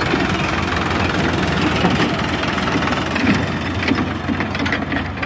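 Sonalika DI 750 tractor's diesel engine running steadily as the tractor tows a trailer away.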